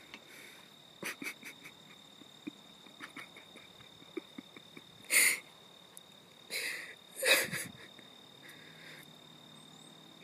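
A steady high insect drone with scattered faint clicks. A few short, loud, breathy rushes of noise sound close to the microphone about five seconds in and again around seven seconds. No dirt-bike engine is heard running.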